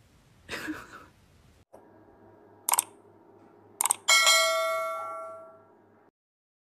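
Subscribe-button sound effect: two mouse clicks about a second apart, then a bright bell chime that is the loudest sound and rings out, fading over about two seconds.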